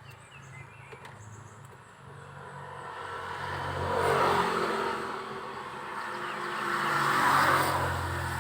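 A motor vehicle's engine running, swelling louder about four seconds in and again near the end.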